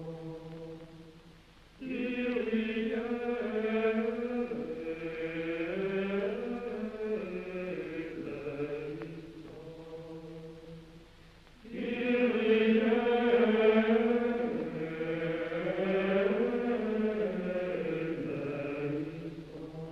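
Background music of slow vocal chant: long held sung notes that step up and down, with a new phrase swelling in about two seconds in and another about twelve seconds in.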